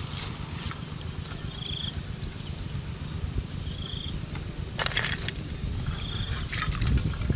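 Crackling clicks of crab shells being stirred by hand in a metal pot, about five seconds in and again near the end, over a steady low rumble of wind on the microphone. A short high chirp repeats about every two seconds.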